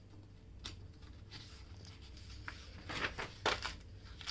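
Paper rustling and soft handling clicks as pages of a printed coloring book are turned, with the louder rustles about three seconds in.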